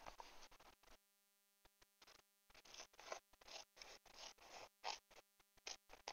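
Scissors snipping through paper in a series of short, faint cuts, with a pause of about a second and a half after the first second.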